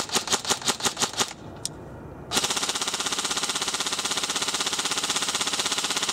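KWA KM16-BR airsoft electric rifle (AEG) firing: a quick string of about seven single shots, then, after a pause of about a second, one long continuous burst.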